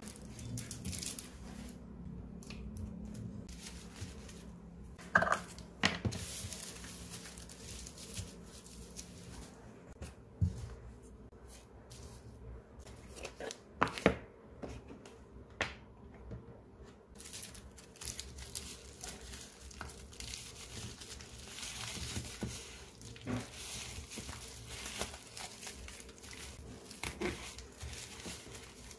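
Hands handling packing materials: plastic bubble wrap crinkling and rustling, and a cardboard box being moved about, with a few sharp knocks on the desk, the loudest about five seconds in and about fourteen seconds in.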